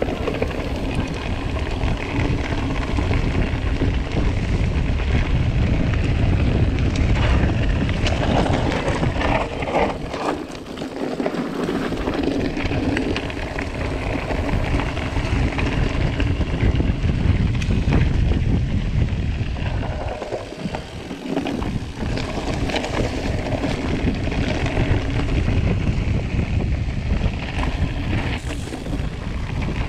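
Wind buffeting the action camera's microphone while a mountain bike rolls along a dirt and gravel trail, with tyre noise and small rattles of the bike. The low rumble thins out briefly twice.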